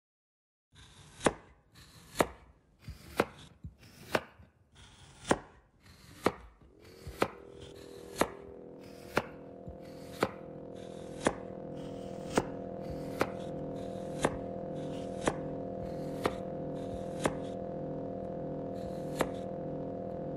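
Live-coded electronic music: a sampled knife-chopping-cucumber sound repeats about once a second, slightly unevenly. From about seven seconds in, a filtered sawtooth-synth drone fades in, its pitch sliding up and then holding, and grows slowly louder under the chops.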